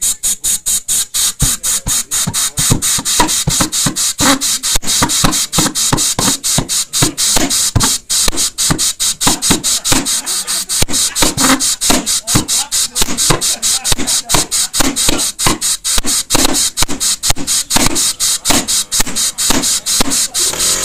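Model valved pulse jet being started: ignition sparks snapping about four to five times a second over the steady hiss of compressed air blown into the intake, with some deeper pops as the fuel catches unevenly. The engine is not yet running on its own.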